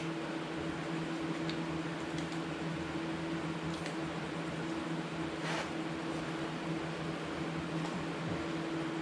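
Steady machine hum with a hiss, like a fan running, holding two low steady tones throughout; a few faint light clicks come through about 1.5, 4 and 5.5 seconds in.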